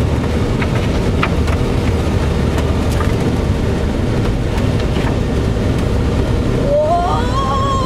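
Vehicle noise heard inside the cab of a 4x4 truck driving slowly on a muddy trail: a steady engine and drivetrain rumble with a few scattered knocks and rattles. Near the end a wavering melody line comes in over it.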